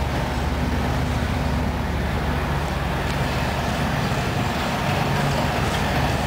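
An engine running steadily at an even speed, with no change in pitch.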